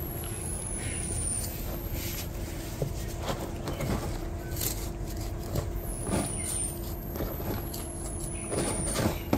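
Steady low rumble of traffic with short rustles and scrapes from handling soil and potted plants. A few high-pitched falling whistles come and go over it.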